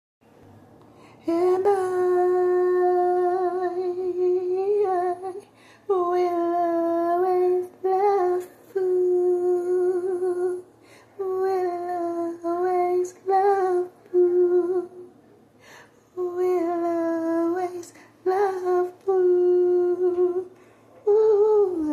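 A woman humming a slow tune without words or accompaniment, holding long steady notes in short phrases with brief pauses between them.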